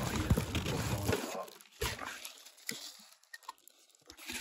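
Plastic bag and tissue paper rustling and crinkling as they are handled close to the microphone: dense for about the first second, then a few scattered crinkles and clicks, briefly near quiet before crackling picks up again at the end.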